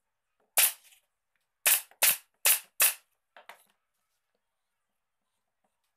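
Nails being driven into the wood of a small table base: one sharp crack, then four more in quick succession about a second later, each under half a second apart, followed by two faint knocks.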